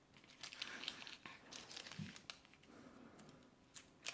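Faint rustling and light scattered ticks of hands working a round cutter to fit and shape a small decorating ring on baking paper, with a soft thump about two seconds in.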